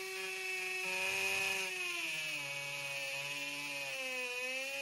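Flex FX1271T 24V brushless hammer drill in second speed without turbo, drilling into concrete with a masonry bit. Its motor and gear whine runs steadily, and the pitch sags and wavers under load as the bit bites.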